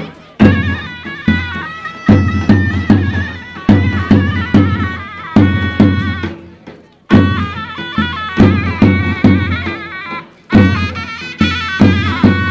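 Turkish folk dance music on davul and zurna: loud, regular drum strokes under a shrill, ornamented reed melody. The music breaks off briefly twice, about six and ten seconds in, then comes back in.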